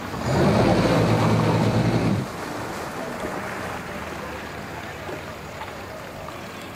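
Mercury outboard motor throttling up for about two seconds with a loud engine note, then dropping back to a low idle over lapping water.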